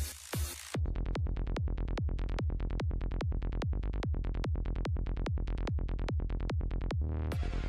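Background electronic dance music with a steady, fast kick-drum beat; a short rising build near the end leads into a fuller, brighter mix.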